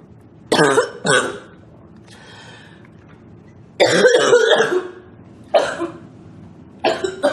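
A young woman coughing: two quick coughs near the start, a longer coughing bout about four seconds in, then two more single coughs.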